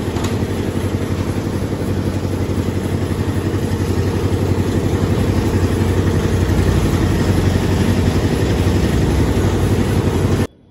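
Concrete mixer's engine running steadily with a fast, even pulse, cutting off suddenly near the end.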